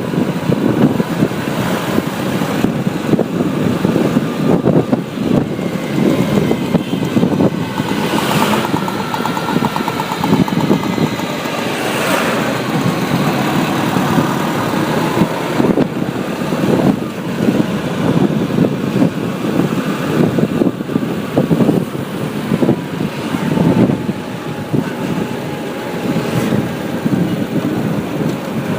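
Motorcycle riding through road traffic: the engine runs steadily under continuous road and traffic noise, with a few brief louder passing sounds.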